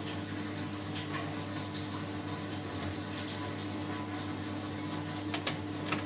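Steady hum and rushing of a Baxi gas combination boiler running on after being switched off, with a few faint clicks about five seconds in.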